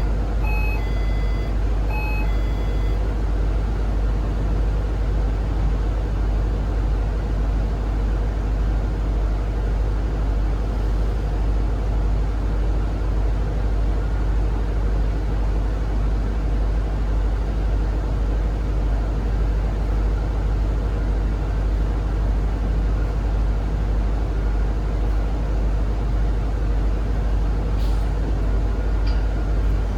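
Zhongtong hybrid range-extender city bus running, heard from inside the cabin as a steady low drone. A short series of electronic beeps sounds in the first few seconds.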